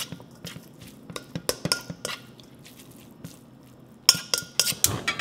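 Wooden spoon knocking and scraping against a stainless steel mixing bowl while tossing dressed glass noodles, the knocks bunched about a second in and again near the end, some with a brief metallic ring from the bowl.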